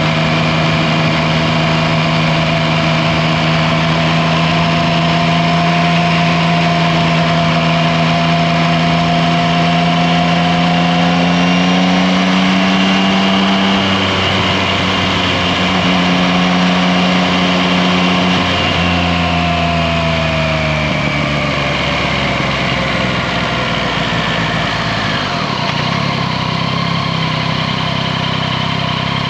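Yamaha Tracer 9 GT's 890 cc three-cylinder engine running on the road, heard from low beside the front wheel over tyre and wind noise. The engine note climbs slowly, jumps in pitch twice past the middle, then falls away as the bike slows.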